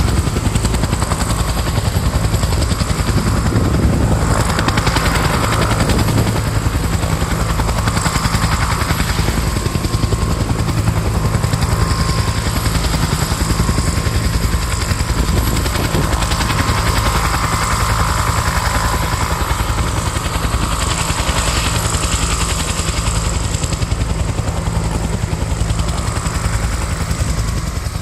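Firefighting helicopter's rotor beating fast and steadily, without letting up.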